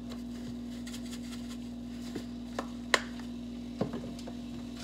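Scattered clicks and taps of a plastic seasoning shaker bottle being shaken over the pan and handled, with one sharp click about three seconds in, over a steady low hum.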